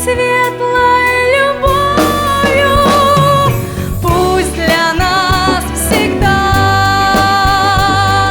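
Music: a song with a voice singing long held notes, some with vibrato, over instrumental accompaniment with a steady bass.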